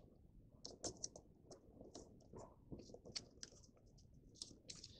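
Faint, irregular crinkles and ticks of origami paper being folded and creased by hand.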